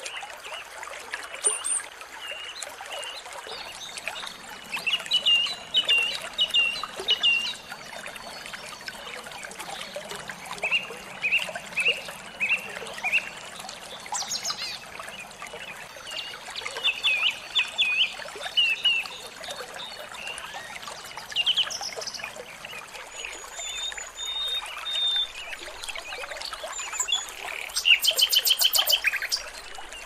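Small songbirds calling in runs of short, sharp chirps repeated several times in a row, over a steady trickle of flowing water. Near the end there is a fast rattling trill, the loudest sound.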